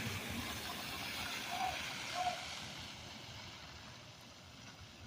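City bus driving on a snowy, slushy road, its tyre and engine noise a wet hiss that fades away as it moves off. Two short squeaks come about a second and a half and two seconds in.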